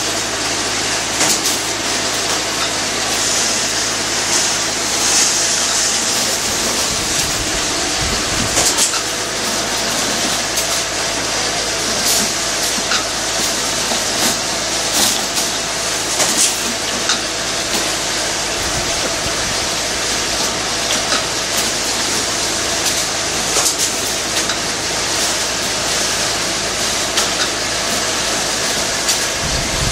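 Steel wire mesh welding machine running: a steady low hum under a high hiss, with irregular sharp clacks every second or two.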